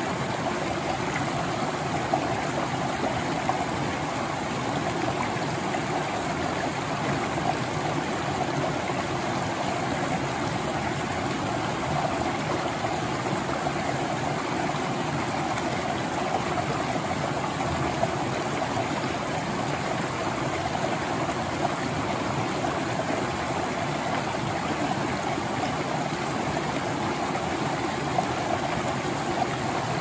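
Shallow rocky creek spilling over small ledges between boulders: a steady rush and splash of running water.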